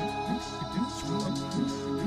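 Instrumental background music: a quickly repeating low figure, about three notes a second, under held tones.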